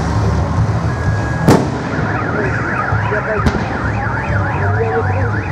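A firework shell goes off with a sharp bang about one and a half seconds in, and a fainter bang follows about two seconds later. Right after the first bang a car alarm starts wailing, its pitch sweeping up and down about three times a second.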